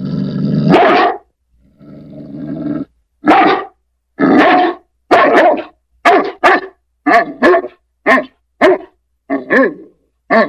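St. Bernard dog growling low twice, then barking loudly about a dozen times, the deep barks often coming in quick pairs.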